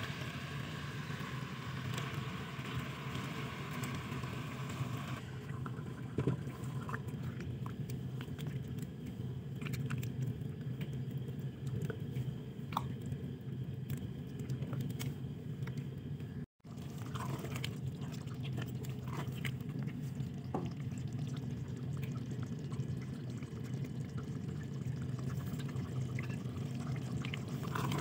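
Korma cooking in a pot: scattered small clicks and liquid sounds over a steady low hum, broken by a brief drop-out about two-thirds of the way through.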